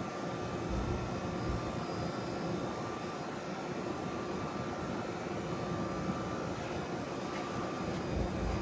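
Outdoor unit of a 2007 1.5-ton Trane XL14i heat pump running steadily just after startup: scroll compressor and ECM condenser fan giving a continuous hum and whoosh. Wind gusts buffet the microphone about a second in and near the end.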